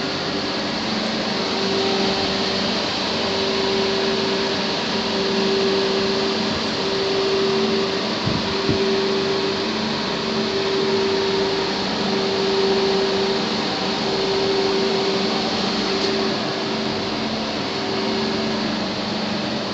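Steady whirring hum of running workshop machinery, with a low tone that swells and fades about every one and a half to two seconds.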